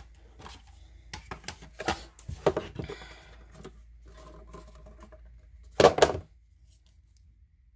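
Hands handling a cardboard Blu-ray box set and its printed inserts: scattered taps, clicks and paper rustles, with the loudest rustle just before six seconds in as a glossy photo print is slid out.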